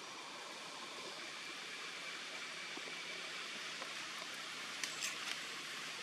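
Steady outdoor background hiss, with a few faint sharp clicks about five seconds in.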